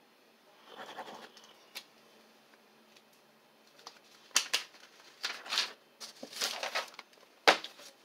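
A ballpoint pen scratching briefly on notebook paper about a second in, then a run of paper rustles and flaps as a spiral notebook's page is lifted and turned over, with a sharp knock near the end.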